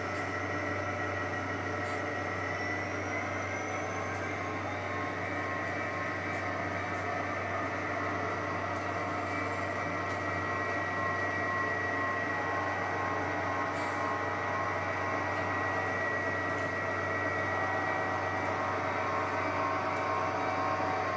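HO scale model diesel locomotive leading a coal train toward the listener: a steady mechanical hum with a held whine that grows gradually louder as it nears.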